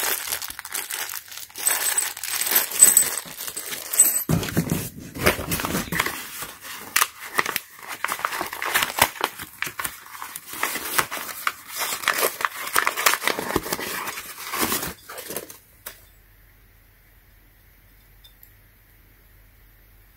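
A small plastic bag of bolts and nuts crinkles in the hands, then packing paper is crumpled and torn as a part is unwrapped. The rustling stops about three quarters of the way through, leaving a faint low hum.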